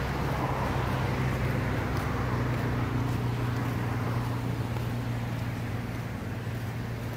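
Steady low mechanical hum under a constant outdoor rush of noise, unchanging throughout.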